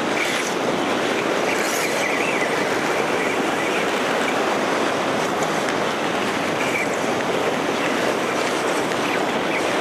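Sea surf breaking and washing over shoreline rocks, a steady rush of white water. A faint thin high whine sounds briefly about two seconds in.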